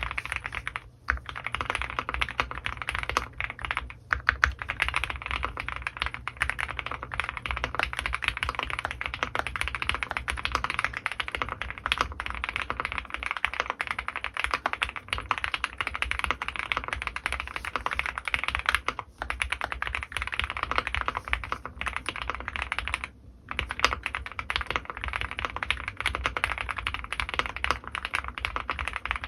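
Rapid, continuous typing on an Owlab Mr.Suit custom mechanical keyboard with lubed Gateron Ink Black V2 linear switches and GMK Serenity keycaps. Keystrokes run together in dense streams, broken by short pauses about a second in, at four seconds, around nineteen seconds and around twenty-three seconds.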